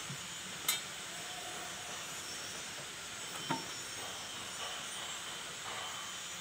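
Two sharp metallic clinks, one about a second in and another past the middle, as metal tractor parts are handled and fitted, over a steady background hiss.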